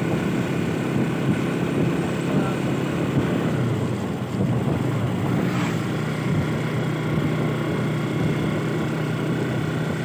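Motorcycle engine running steadily while riding, with a continuous rushing noise.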